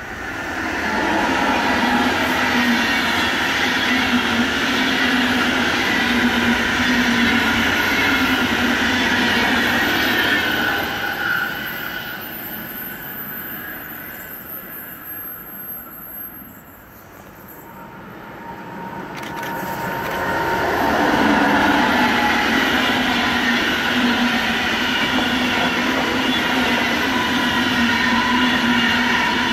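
Locomotive-hauled SBB passenger train running through a station, with steady wheel-on-rail rumble and squealing tones. It is loud for most of the time, with a quieter stretch in the middle before the coaches pass close by.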